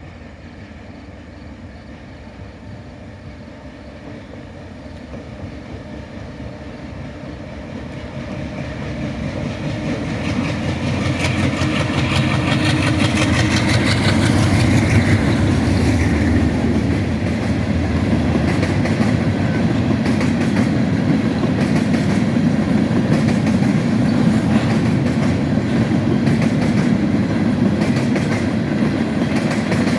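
Diesel freight train approaching, growing steadily louder over the first dozen seconds. It then passes at a steady loud rumble, its wagon wheels clicking rhythmically over the rail joints.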